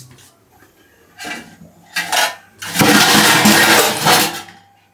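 Steel dishes clattering in a steel kitchen sink, then a loud steady rush of tap water into the sink for about a second and a half.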